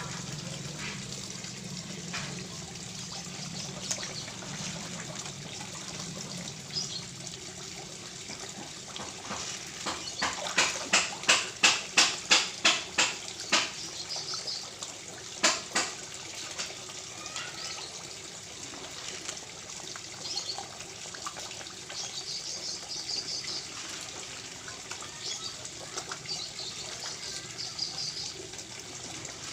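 Steady running water at a koi pond. About a third of the way in, a quick run of about ten loud, sharp slaps, roughly three a second, then one more a couple of seconds later.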